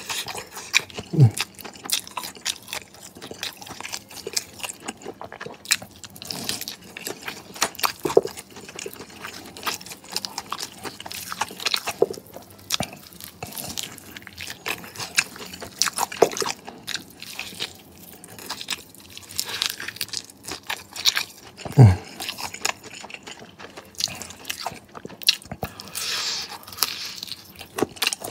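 Close-miked chewing and biting of crispy fried chicken wings: irregular crunches and crackles of the coating, with wet chewing in between. A brief low falling sound comes twice, about a second in and again near 22 seconds, the second being the loudest moment.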